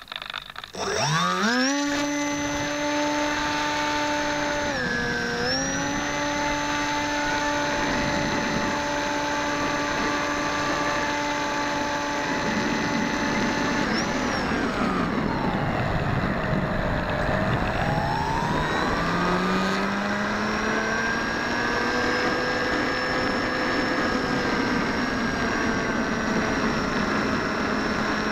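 Electric motor and pusher propeller of a Bixler RC foam plane, heard from on board. It spools up with a rising whine about a second in, then holds a steady whine. The pitch dips briefly around five seconds in and sags and recovers slowly between about fourteen and twenty seconds, following the throttle. Wind rush runs under it throughout.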